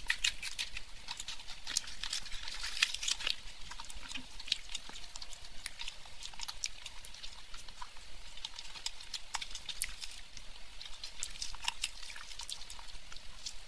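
Close-miked eating sounds: chewing and many small wet mouth clicks, with the squelch of fingers breaking food in thick curry gravy. The clicks come thickest in the first few seconds and again near the end.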